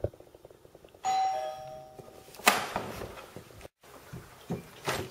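Two-tone doorbell chime about a second in: a high ding, then a lower dong. It is followed by a loud scraping rustle and a few soft knocks.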